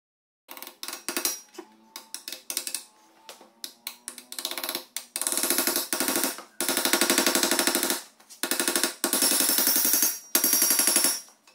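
A hammer tapping a new pinion seal into a Dana 30 differential housing, metal on metal with a ringing note. Scattered taps at first, then long runs of rapid taps from about halfway, driving the seal home.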